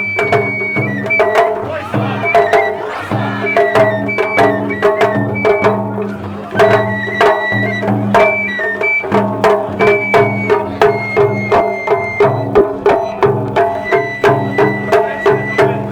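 Japanese festival hayashi music: a high flute melody over a steady beat of drums and sharp struck percussion, about two to three strikes a second.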